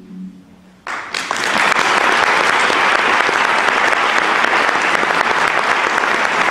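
A last low harp note dies away, and about a second in an audience breaks into steady applause.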